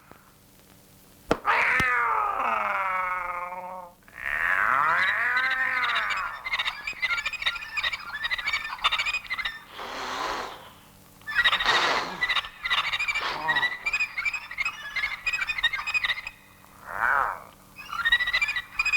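Cartoon soundtrack: two long animal cries with gliding pitch, the first falling and the second rising then falling, followed by a chorus of frog-like croaking broken by a few short swishes.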